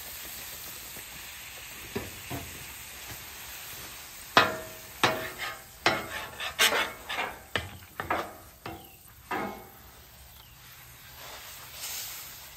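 Water sizzling into steam on a hot steel flat-top griddle. From about four seconds in come a run of quick, uneven scrubbing strokes: a paper towel held under a hand tool is rubbed hard across the wet, steaming surface to lift off burnt-on sugary sauce.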